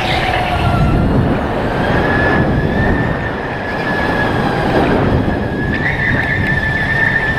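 Electric Sodi RTX go-kart running at speed, heard from on board: a thin, high, steady electric-motor whine over a low rumble. The whine fades for a moment about halfway through and returns stronger near the end.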